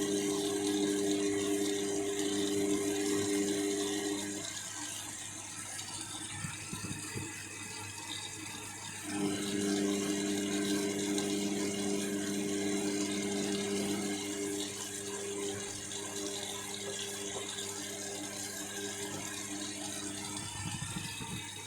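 Washing machine taking in water during a heavy cotton wash: a steady hiss of water running in, under the hum of the drum motor turning the drum. The motor hum stops about 4 seconds in and starts again about 9 seconds in, running until near the end.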